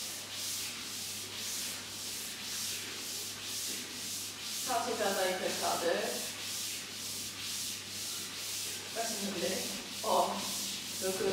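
Feet sliding back and forth on a slide board in alternating mountain-climber strokes, a steady swishing of about two to three strokes a second.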